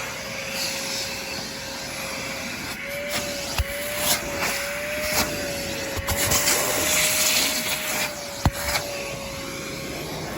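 Vacmaster Professional Beast wet/dry shop vac running while its nozzle is worked over car carpet. It gives a steady motor whine over a rushing hiss of air, and the whine wavers slightly in pitch as the nozzle is pushed across the carpet. A few sharp knocks come through.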